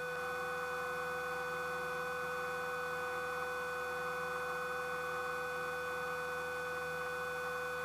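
Steady hum made of several constant tones, unchanging throughout: a single-engine light aircraft in cruise heard through the cockpit intercom and radio audio feed between transmissions.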